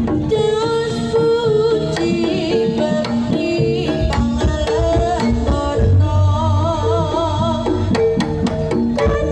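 Jaranan gamelan accompaniment: quick hand-drum strokes under repeated ringing gong-chime notes, with a wavering melody line above. Deep low notes join about six seconds in.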